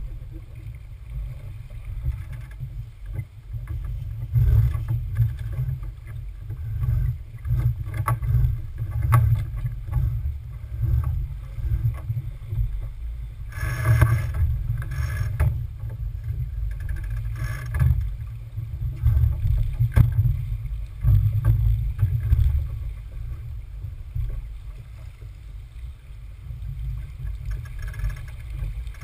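Smaragd keelboat under sail: a loud, gusting low rumble of wind and water on the boat, with scattered light knocks and clicks from the boat's gear and a louder rush about halfway through.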